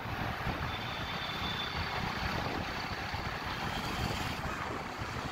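Steady wind rush on the microphone with road and traffic noise from riding in the open along a busy road among motorbikes and scooters.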